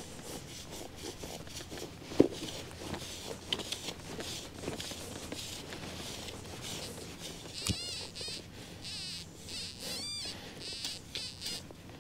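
Hand digging tool stabbing and scraping into dry, crumbly soil, loosening clods, in a series of short scrapes with a sharper knock about two seconds in and another about seven and a half seconds in.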